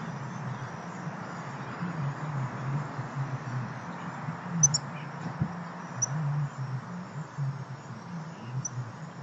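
A few short, high bird chirps over a steady outdoor hiss and a low rumble.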